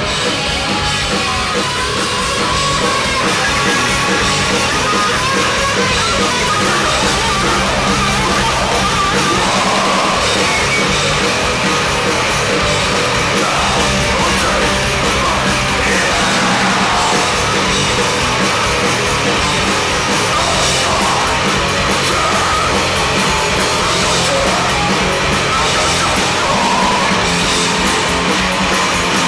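Crust punk band playing live at full volume: distorted electric guitars, bass and fast drums under shouted vocals, heard through a loud concert PA.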